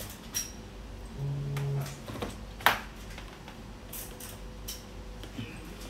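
A few sharp clicks and knocks from electrical switches and wire connections being handled, the loudest nearly three seconds in, with a short low buzz a little past a second in, over a faint steady tone from the bench equipment.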